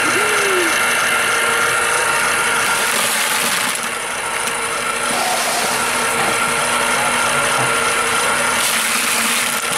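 Electric ice cream maker's motor and gearbox running steadily, turning the canister in its bucket of ice, with a steady whine.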